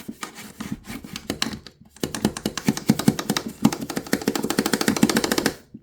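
A worn toothbrush scrubbing the plastic detergent drawer of a Samsung washing machine in rapid back-and-forth strokes. The strokes get louder from about two seconds in and stop suddenly near the end.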